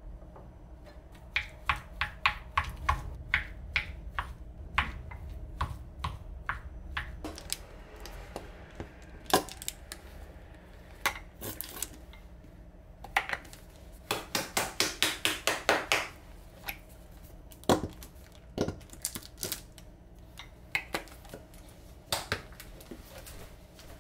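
Kitchen prep: sharp knocks and clicks of utensils on hard kitchen surfaces, a few a second at first, with a quick even run of strokes about two-thirds of the way through.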